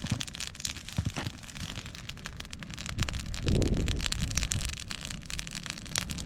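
Wood fire crackling with dense, irregular pops and snaps, and a low rumble of wind on the microphone that swells about halfway through.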